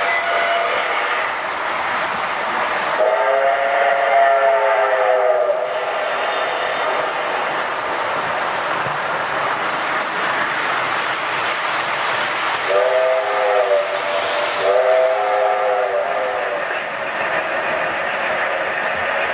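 Lionel O-gauge model trains running on metal three-rail track, with a steady rolling rumble. A locomotive's onboard sound system sounds a multi-note chime signal three times: one long blast about three seconds in, then two shorter ones close together past the middle.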